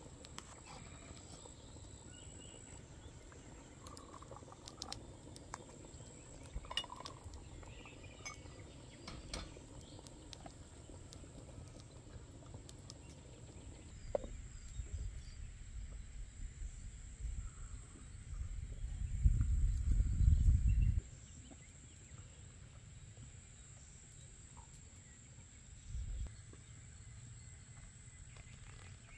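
Quiet countryside ambience with a steady high insect drone, broken by scattered small glass clinks of tea glasses on a tray early on. There is a low rumble for a couple of seconds about two-thirds of the way through, and a short low thump near the end.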